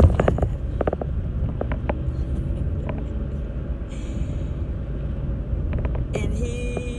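Steady low road and engine rumble of a moving car, heard from inside the cabin, with a woman's voice breaking in briefly with laughter near the start and near the end.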